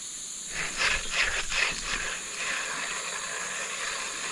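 Steady high-pitched drone of insects, with a short run of scratchy noises about a second in.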